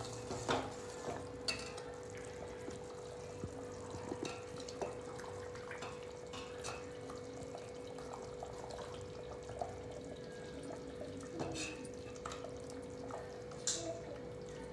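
Raw chicken pieces being mixed into a boiling masala gravy in a pan: faint wet plops and drips with scattered soft clicks of the spoon against the pan, over a steady low hum.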